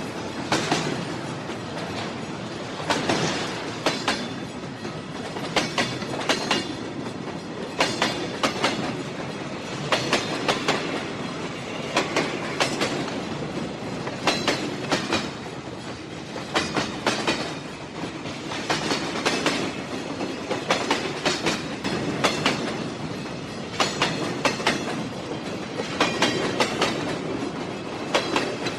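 Train running along the track, its wheels clattering over rail joints in pairs of clicks about every two seconds over a steady rumble.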